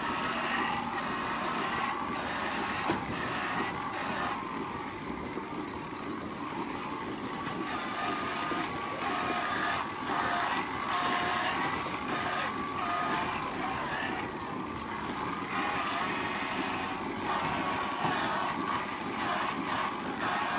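Handheld electric rotary teat-cleaning brush whirring as it scrubs cows' teats, its pitch wavering as it presses on and comes off. Under it runs the steady noise of milking-parlour machinery.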